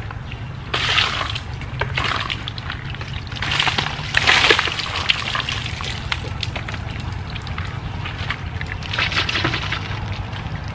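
Water splashing in short bursts during a bucket bath at a well: water is poured from a bucket and splashed onto the face and body. The biggest splash comes about four seconds in, over a low steady hum.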